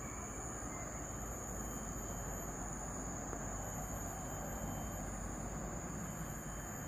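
Insects chirring in a steady, high-pitched drone, over a low, steady background rumble.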